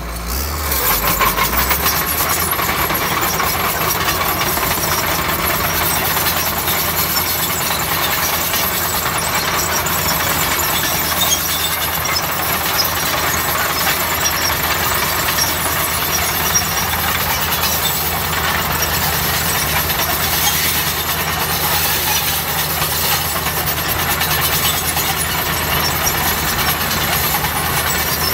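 Shantui bulldozer's diesel engine running steadily under work, with a couple of short knocks.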